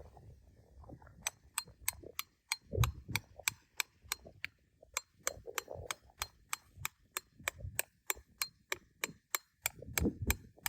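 A rapid, even series of sharp clicks, about four a second, starting about a second in, with duller knocks and handling sounds underneath.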